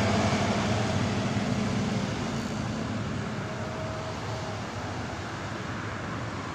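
Road traffic on a hill road: a heavy vehicle's low engine hum that fades over the first three seconds as it pulls away, then a steady wash of passing cars.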